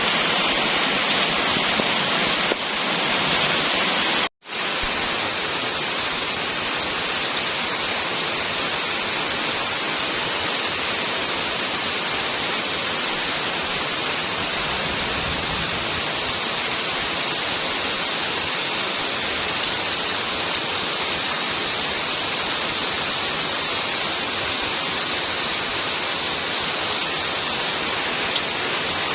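Rain falling steadily, an even hiss with no letup; the sound cuts out for an instant about four seconds in.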